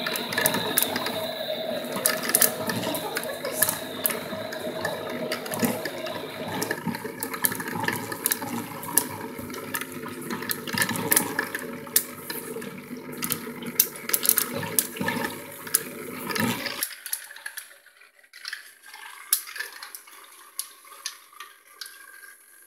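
A motorized toy tornado maker running: its small motor whirring as the water churns in the clear tube, with many small clicks and taps. The low running sound cuts off abruptly about 17 seconds in, leaving fainter clicks and water movement.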